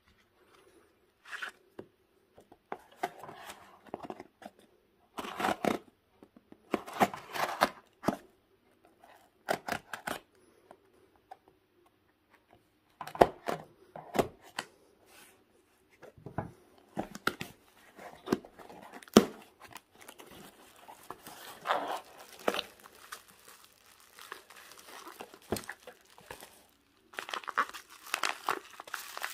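Packing tape on a small cardboard box being slit with a knife and torn off in irregular bursts of scraping and ripping. Near the end, bubble wrap and a plastic bag crinkle as the contents are pulled out.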